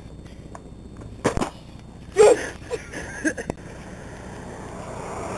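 A sharp knock about a second in and a few short yelps, then a car's engine and tyres growing steadily louder as it draws closer.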